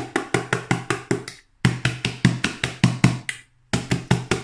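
Round aluminium cake tin full of sponge-cake batter rapped down on the worktop again and again, about five sharp knocks a second in three quick runs with two short pauses. This knocks air bubbles out of the batter before baking.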